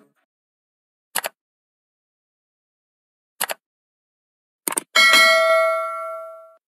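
Three short clicks, the last one doubled, then a bright bell ding that rings on and fades, cut off just before the end.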